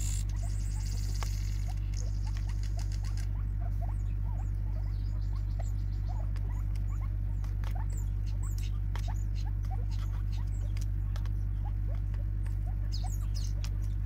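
Francolins pecking seed from a plastic bottle feeder: scattered, irregular light ticks and taps over a steady low hum, with a high hiss that stops about three seconds in.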